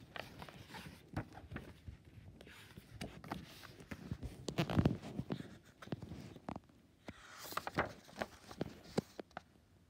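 A picture book being handled and opened by hand, its pages turned: irregular taps, scrapes and rustles of paper and cover, with a louder scuffle about halfway through and a quick swish of a page a little later.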